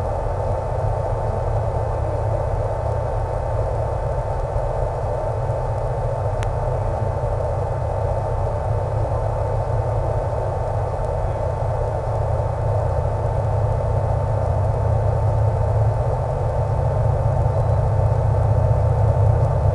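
Steady in-flight drone of an RC plane's E-flite Power 10 brushless electric motor and 11x7 propeller, with wind, hiss and a faint steady tone under it. It gets slightly louder toward the end.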